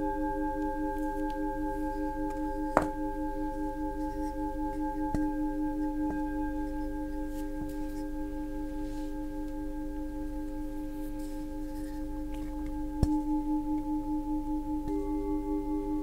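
Singing bowls ringing with several overlapping tones that pulse slowly, struck with a mallet twice, about three seconds in and again near thirteen seconds. Another, higher bowl joins near the end.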